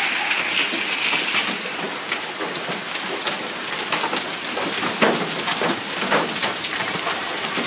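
Hail falling on a lawn: a steady dense hiss with frequent sharp ticks of small hailstones striking.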